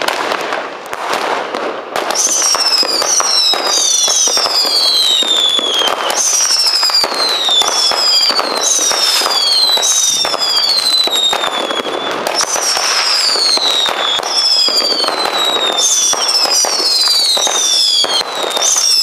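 Schuurmans Thunder Excellent firework cake firing off its shots: a dense crackle of pops, joined about two seconds in by a long run of overlapping whistles, each falling steadily in pitch.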